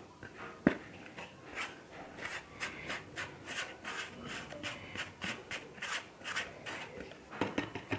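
The paper-foil seal of a plastic protein-powder tub being peeled and torn away from the tub's rim, a run of short scratchy rustling strokes, about three a second.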